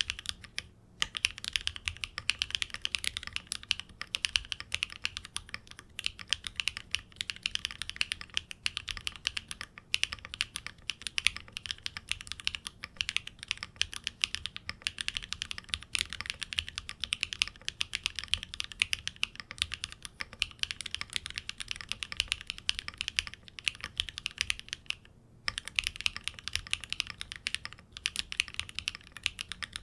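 Continuous fast typing on a custom split ergonomic mechanical keyboard (Neo Ergo) fitted with Owlab Neon switches on a polypropylene plate: a dense stream of key clacks. The typing pauses briefly about a second in, around ten seconds in and near twenty-five seconds in.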